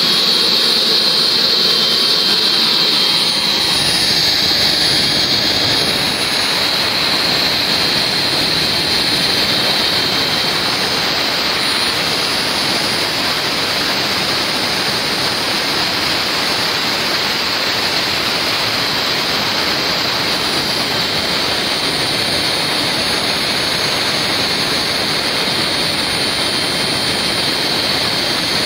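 JETPOL GTM100 micro jet engine running steadily at idle: a constant high turbine whine over a loud, even rush of intake and exhaust noise.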